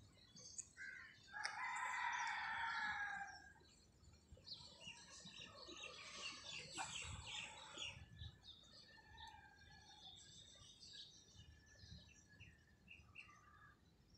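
A rooster crows once, a call of about two seconds starting a second and a half in, the loudest sound here. Small birds chirp around it, most busily a few seconds after the crow.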